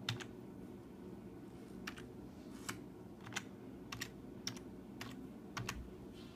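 Computer keyboard keys tapped one at a time while a short name is typed: about nine separate clicks, unevenly spaced, over a faint steady hum.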